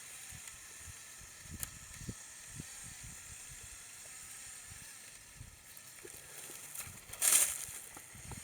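LEGO Technic remote-controlled model's motors and plastic drivetrain running as it crawls over tree roots in second gear, with small knocks along the way. A loud, short rasp comes about seven seconds in.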